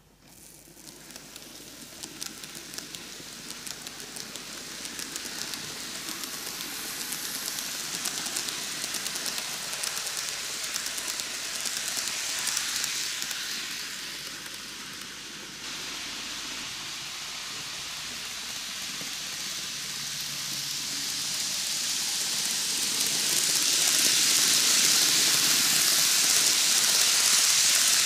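N gauge model train (Micro Ace Keikyu 2100 series, 12 cars) running on its track: a steady hissing rattle of wheels and motor on the rails with rapid clicking in the first half. It starts up at the beginning, and it grows louder and is loudest near the end as the train runs close past.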